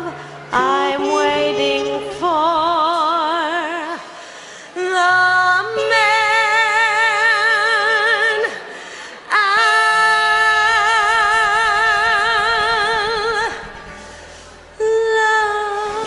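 Female singer with a small band, holding long notes with a wide vibrato, two of them several seconds each in the second half, over a steady bass line.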